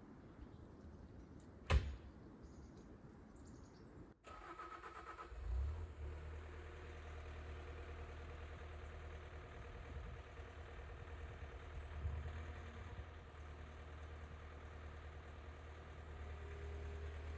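A sharp click, then a short steady tone, then a skid steer's engine starting about five seconds in and settling into a steady low idle.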